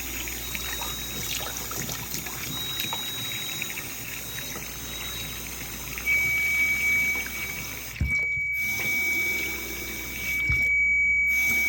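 A steady trickling, water-like hiss with a thin, steady high-pitched tone over it; the tone shifts lower and gets louder about six seconds in, and the hiss briefly drops out twice near the end.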